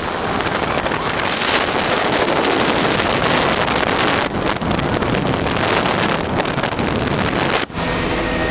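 Helicopter in flight, its engine and rotor noise mostly buried under heavy wind rushing over the microphone. Near the end the sound cuts out for an instant, and a steadier engine and rotor hum follows.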